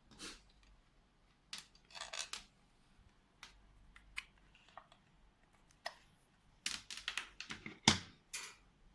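Irregular light clicks and knocks, about a dozen, coming closer together near the end, like small hard objects being handled.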